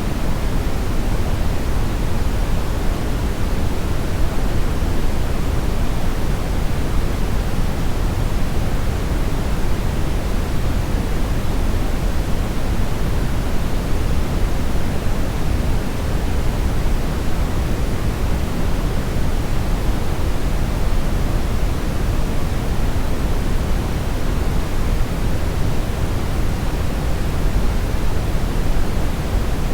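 Steady synthetic brownish noise, a deep, even hiss heaviest in the low end and softer toward the top, with no changes or events.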